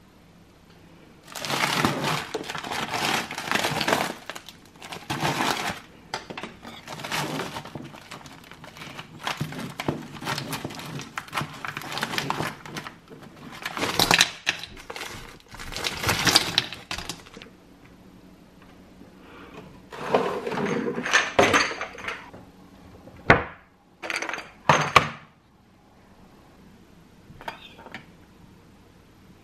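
Kitchen food-preparation noise: irregular stretches of crackly, crinkly handling noise, then a few sharp clinks near the end as glass spice jars are handled.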